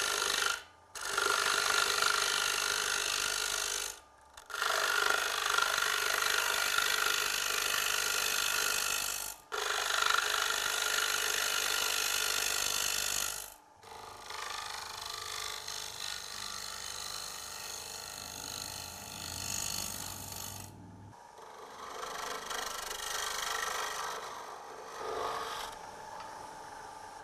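Round tungsten carbide cutter on a TurnMaster turning tool cutting the outside of a cross-grain bowl blank spinning on a wood lathe: a steady rushing scrape as shavings come off, broken by three short gaps. From about halfway it turns lighter and quieter as the final shaping cuts are made.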